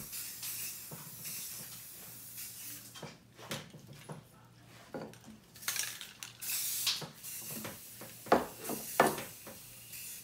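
Aerosol spray paint can hissing in short bursts, the longest about two-thirds of the way in, as paint is sprayed onto water in a bowl. Two sharp knocks near the end are the loudest sounds.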